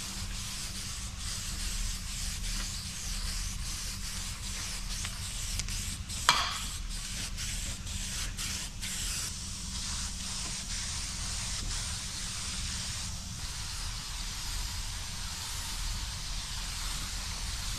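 Aerosol spray-paint cans hissing in repeated bursts, with one brief sharp clack about six seconds in.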